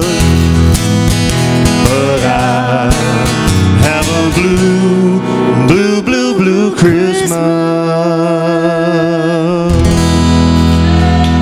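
Live music: a strummed acoustic guitar with sung, held and wavering vocal notes and no words. A long held chord comes about two-thirds of the way through.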